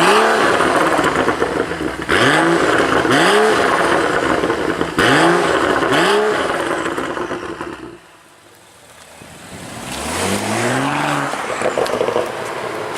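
BMW 640i's turbocharged straight-six through a custom open-valve exhaust, revved hard several times, each rev rising quickly in pitch and then cut off. About eight seconds in it drops away sharply, then the engine rises again more slowly near the end.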